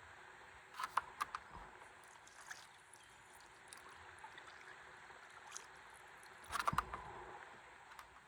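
Flowing river water around a stand-up paddleboard, faint and steady, with two short clusters of splashy knocks, about a second in and again near the end.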